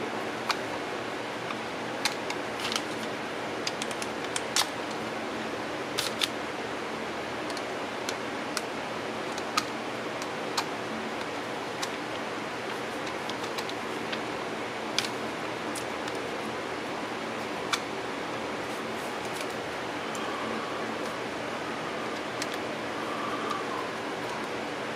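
Scattered small clicks and taps of a screwdriver on the screws and housing of a Singer 306K sewing-machine motor being screwed together, over a steady low hiss. The clicks are irregular and thin out after about two-thirds of the way through.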